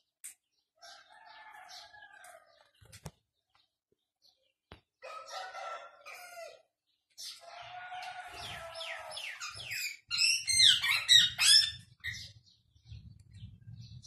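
Young cockatiel calling: a few drawn-out calls, then a loud run of quick, high, falling chirps about ten seconds in.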